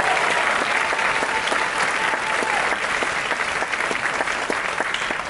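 Audience applauding, slowly tapering off near the end.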